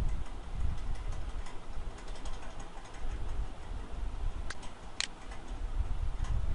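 A few sharp computer mouse clicks over a steady low microphone rumble, the clearest two about half a second apart near the end.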